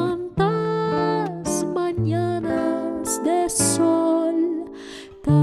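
A woman singing a wordless melody with vibrato over a nylon-string classical guitar playing a waltz accompaniment.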